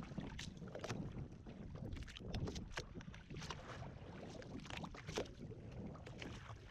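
Water splashing and slapping irregularly against the hull of a small boat under way, over a low rumble of wind and water.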